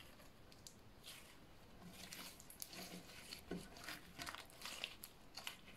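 Faint sticky crackling and small clicks of fluffy slime being squeezed and folded by hand, starting about two seconds in.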